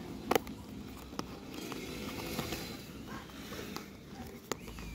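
Cardboard box flap being opened by hand: a sharp click as the tab pulls free, a few smaller clicks, and soft rustling of the card between them.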